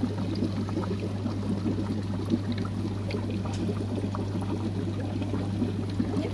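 Aquarium water trickling steadily over a constant low hum.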